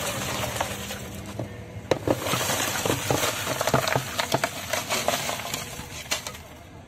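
Crushed ice sliding off a metal pan and clattering into a clay pot, the chunks knocking against one another in a dense rattle that thins out near the end.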